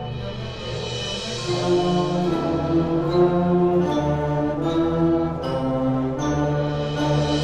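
School wind band playing a film score: held chords that move from note to note every second or so, getting louder about one and a half seconds in.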